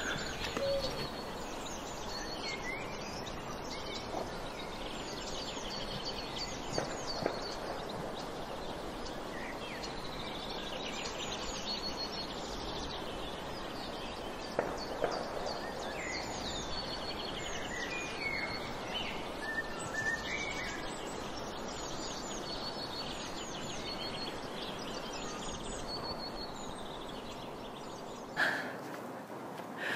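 Outdoor ambience: a steady background rush with small birds chirping throughout in quick runs of short, falling notes. A brief louder sound comes near the end.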